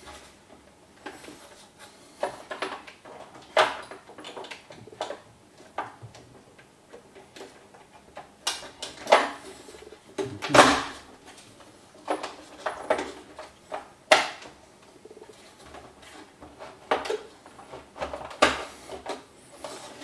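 Plastic clicks, knocks and rubbing as the SMEG ECF01 coffee maker's internal assembly and red plastic housing are handled and pushed together during reassembly. The knocks come irregularly, the loudest around the middle.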